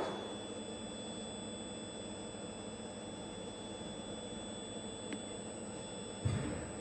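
Steady high-pitched electrical whine over a low hum from powered machinery, with a dull thump near the end.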